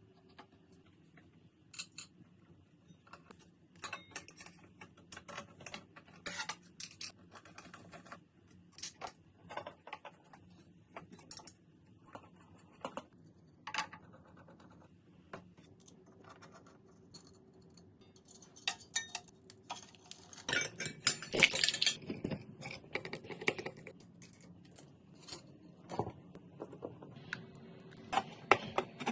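Clicks, clinks and rattles of small metal hardware and hand tools being handled, with a busier stretch of clatter and scraping about two-thirds of the way through.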